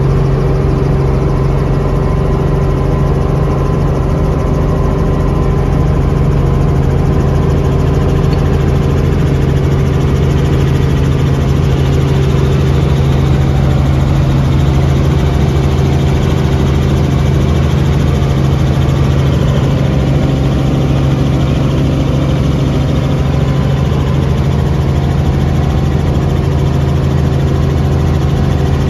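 Helicopter engine and rotor heard from inside the cabin, running steadily through lift-off and climb, with a strong low hum. A higher hiss grows a little stronger about ten seconds in.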